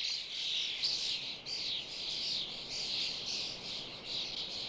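A large flock of common starlings calling together: a dense, unbroken chatter of overlapping high chirps.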